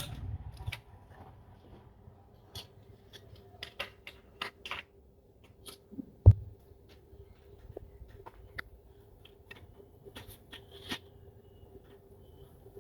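Scattered light clicks and knocks from handling a Skout Epoch PCP air rifle, with one louder, dull low thump about six seconds in, over a faint steady hum.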